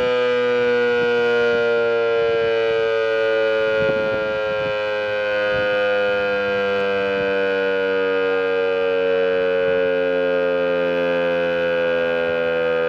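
VEM DS977 mechanical civil-defence siren sounding a loud, steady tone with a rich stack of overtones, its pitch slowly falling throughout as the rotor slows near the end of the monthly "Sirenentest" signal.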